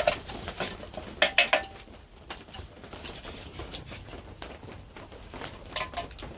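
Metal utensil clinking and scraping against a small metal bush pot while diced steak is stirred: a quick run of clinks about a second in, and two more near the end.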